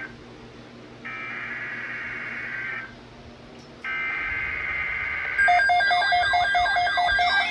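Emergency Alert System header: three bursts of buzzy digital data tones with short pauses between them. Just after the third burst, a louder electronic alert tone begins, several pitches warbling and pulsing together.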